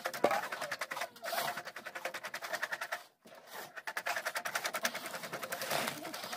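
Small engine of a concrete mixer running steadily, with rapid, even pulses about ten a second. The sound cuts out for a moment about three seconds in, then resumes.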